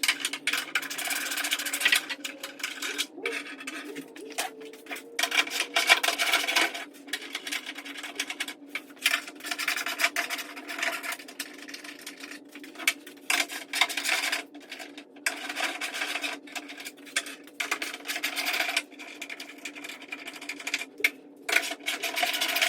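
Irregular rubbing and scraping with short knocks as the fastenings are undone and the aftermarket fender panel is worked off the car's body.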